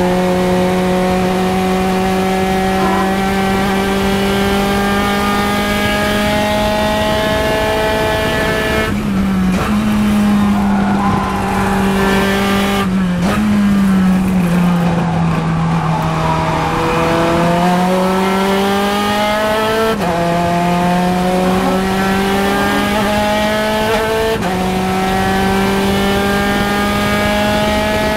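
Spec Racer Ford Gen 3's Ford 1.6-litre four-cylinder engine, heard onboard at full throttle, its pitch climbing slowly. About nine seconds in it lifts off and the pitch steps down through downshifts into a slow corner. Then it pulls hard again and climbs up through the gears, with upshifts about twenty and twenty-four seconds in.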